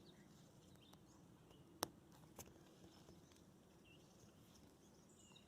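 Near silence outdoors, with faint bird chirps and one sharp click a little under two seconds in, then a fainter one.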